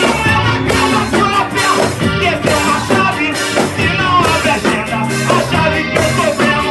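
Band music: a song with a steady beat.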